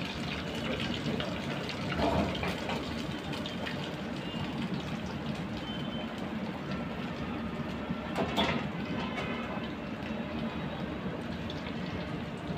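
Breaded paneer patty deep-frying in hot oil in a steel kadai: a steady sizzle and bubbling of the oil, with brief louder spurts about two seconds in and again about eight seconds in.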